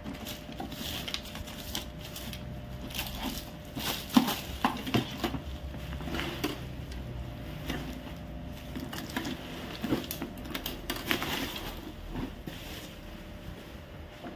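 Bubble wrap and plastic packing being pulled off and handled around a printer: irregular crinkling and crackling with a few sharp knocks, the loudest about four seconds in.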